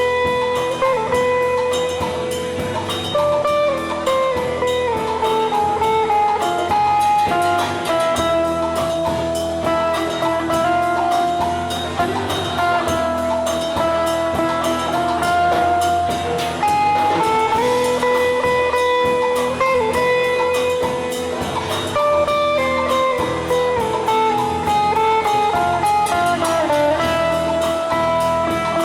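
Live instrumental band music: a guitar playing a sustained, stepping melody over a drum kit.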